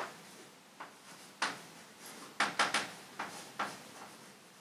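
Chalk writing on a chalkboard: a series of short taps and scrapes, one per stroke, with a quick cluster of strokes about two and a half seconds in.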